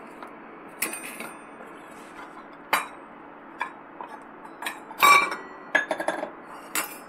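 Stainless steel bowls clinking against each other and the stone countertop as they are separated and set out one by one: about ten sharp metallic clinks with a brief ring. The loudest comes about five seconds in, and a quick run of clinks follows just before six seconds.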